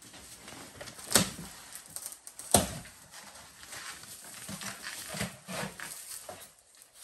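Rustling and handling of a gift box being unwrapped, with two sharp knocks about a second and a half apart near the start, then scattered rustles and small clicks.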